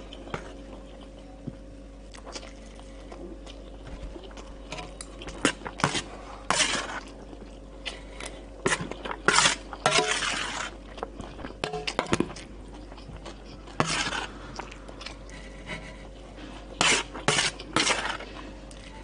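Metal spoon scraping and clinking on a stainless steel plate as rice is scooped up, in short irregular strokes, mixed with close-up eating sounds.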